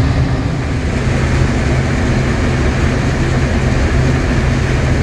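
Combine harvester running steadily while harvesting corn, heard from inside the cab: a constant low engine hum under a broad, even rushing noise from the machine.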